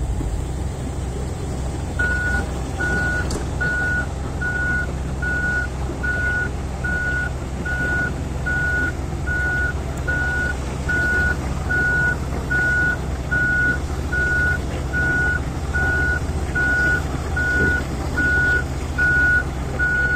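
Komatsu PC2000-8 excavator's warning beeper starting about two seconds in and repeating evenly, a little more than once a second, as the hydraulic access ladder is lowered, over the steady running of the machine's diesel engine.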